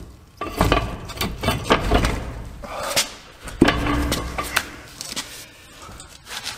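A heavy truck wheel and tire with a broken steel rim being pulled off the hub studs: a run of clanks and knocks with scraping of metal on metal and heavy low bumps, most of it in the first two-thirds and quieter near the end.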